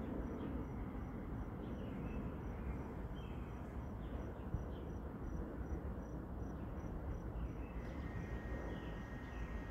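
Crickets chirping in an even, high-pitched pulse, about two chirps a second, over a low steady rumble of background noise. A faint steady whine comes in near the end.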